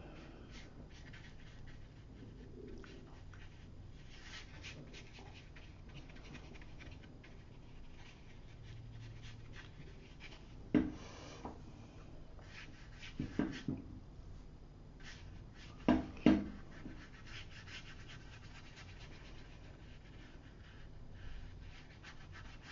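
Watercolour brush stroking and dabbing on paper, a faint scratchy brushing, with a few short louder sounds about eleven, thirteen and sixteen seconds in.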